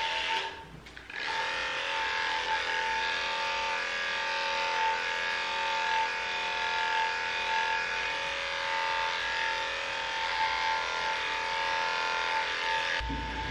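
Cordless dog hair clippers running with a steady buzzing hum while shaving a dog's leg. The hum drops out briefly about a second in, and there is a low thump near the end.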